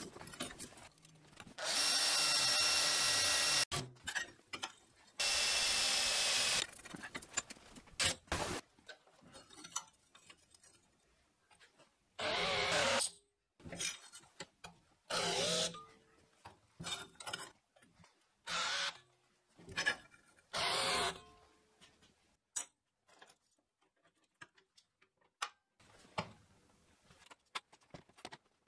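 Electric drill boring holes through steel flat bar: two runs of a few seconds each near the start, then several shorter bursts, with small knocks of metal in between.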